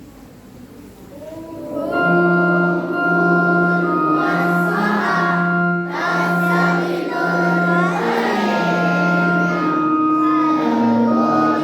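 A group of children singing together over steady held instrumental notes, starting about two seconds in after a quiet opening.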